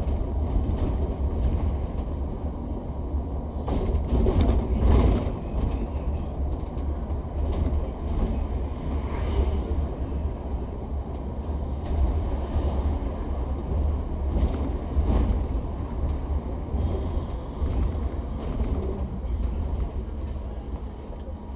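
Cabin noise inside a moving double-decker bus: a steady low rumble of engine and road, with a few louder knocks and jolts, the strongest about four to five seconds in and again around fifteen seconds.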